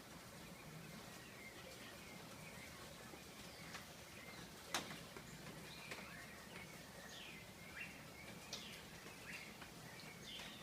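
Several birds chirping and calling in short, quick notes that slide up and down in pitch, faint against a steady background hiss. A single sharp click sounds a little under halfway through, louder than the birds.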